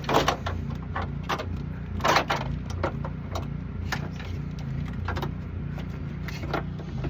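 Scattered clicks, knocks and light rattles of wiring harness plugs and cables being handled and pushed through, over a steady low hum.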